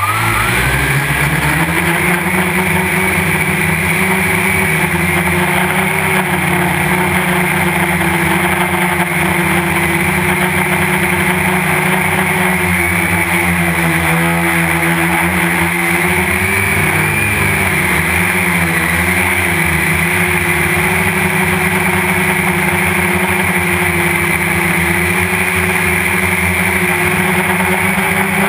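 Quadcopter drone's electric motors and propellers heard up close from on board. They spin up with a rising whine in the first second, then hum steadily. The pitch wavers for a few seconds around the middle as the drone lifts off and climbs, then settles again.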